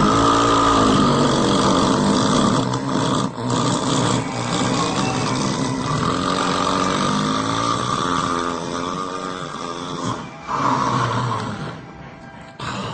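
Loud snoring: one long stretch of about ten seconds with a wavering pitch, then two shorter snores near the end.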